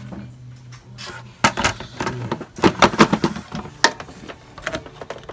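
Hard plastic parts of a Hoover WindTunnel T Series bagged upright vacuum clicking and knocking as a part is pushed and snapped back into place, in an irregular run of sharp clicks through the middle.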